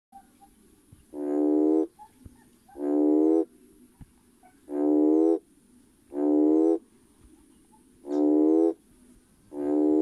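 Male red toad (Schismaderma carens) calling to attract mates: six steady-pitched, even calls, each about two-thirds of a second long, repeated every one and a half to two seconds.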